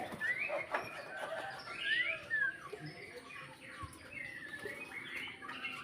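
Birds chirping in an aviary: a run of short, rising chirps, loudest about two seconds in.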